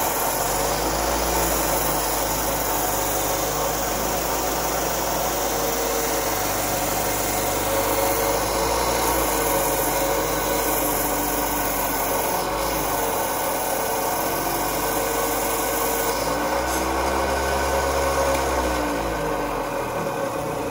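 Diamond Laser Speedster XL wet band saw, its water-fed diamond blade grinding through thick glass as an ashtray is fed through to cut out a disc. A steady rasping grind with a whine that wavers up and down in pitch as the glass is pushed and turned.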